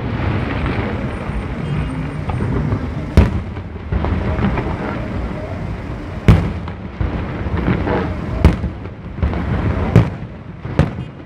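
Aerial firework shells bursting: about six sharp booms spaced one to three seconds apart, over steady background noise between them.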